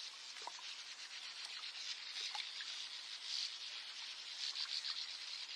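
Morning lakeside nature ambience: a steady high haze of distant birdsong with scattered faint, short chirps.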